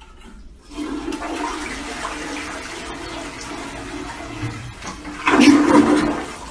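A toilet flushing: water rushing and swirling down the bowl, louder near the end.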